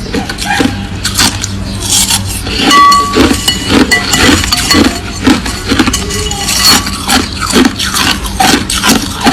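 Crushed ice being chewed close to the microphone: a fast, irregular run of crunches, with a short clink of ice about three seconds in.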